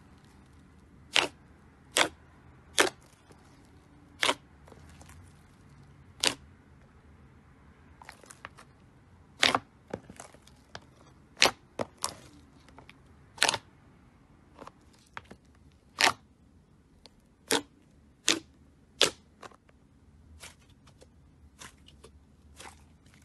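Sharp pops and clicks of air pockets bursting as hands press, squeeze and stretch thick pink slime. About a dozen loud pops at irregular intervals, with softer crackles between them.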